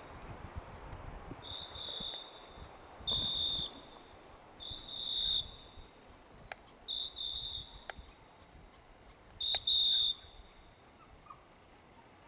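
A high, piercing single-pitch tone sounded about five times at uneven intervals, each blast under a second long, with a few faint clicks in between; it is a signal tone used in bird-dog training.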